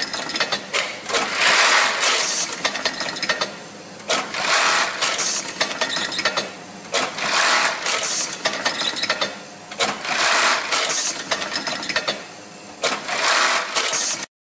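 Siruba BT290 industrial sewing machine stitching in short runs of a second or two, with brief pauses between. The sound cuts off suddenly near the end.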